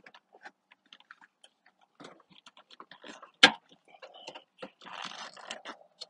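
Irregular small clicks and scrapes of a wire being forced through a car door's rubber wiring grommet, with one sharp knock about halfway through and a longer scraping rustle near the end.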